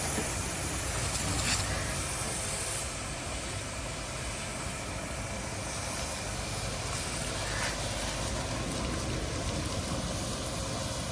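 Diesel engine of a heavy vehicle idling steadily.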